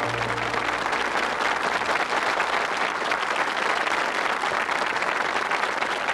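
Audience applauding, a dense, even clapping, as the last held chord of the choir song dies away in the first second.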